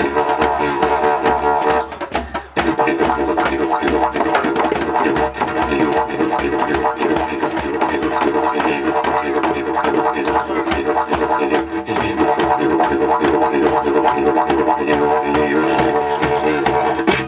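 Didgeridoo playing a continuous drone with shifting overtones, with hand drums (djembe) tapping a rhythm along with it. The drone drops out briefly about two seconds in.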